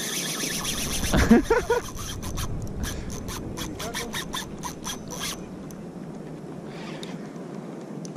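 Spinning reel's drag clicking and buzzing in quick spurts as a hooked fish, probably a bonito, pulls line, stopping a little after five seconds in. About a second in there is a short, louder low sound with a wavering pitch.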